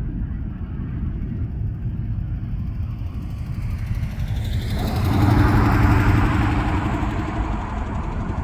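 A road vehicle passing close by, its tyre and engine noise swelling about five seconds in and fading away, over a steady low rumble.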